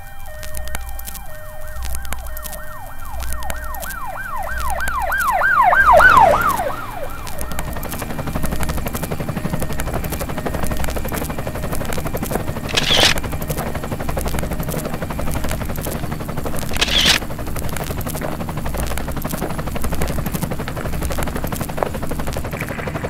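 Emergency vehicle siren in a fast yelping warble, growing louder to a peak about six seconds in, then dropping in pitch and fading as it passes. A steady low hum with a regular low pulse runs underneath, and two short sharp sounds come later.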